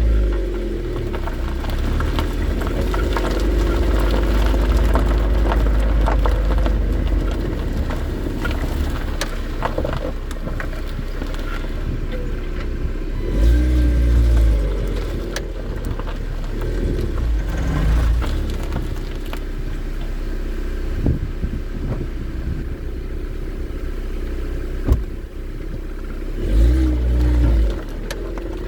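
Lada Vesta driving, with steady running and road noise, swells of low rumble and a few sharp knocks from the rear suspension. The owner has traced the knock to the left rear strut area. Spacers under the strut mounts and a silicone ring under the torn lower spring seat have not cured it.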